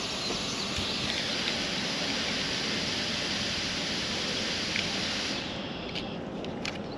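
Steady hiss of a DJI FPV drone's cooling fan while the drone is powered on, cutting off about five and a half seconds in as it is switched off at the battery. A few light plastic clicks from the drone being handled follow.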